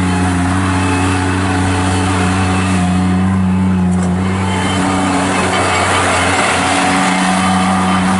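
Kubota diesel engine of an Avant 420 articulated mini loader, running steadily at a constant speed. A rougher, hissing noise over the engine grows about halfway through.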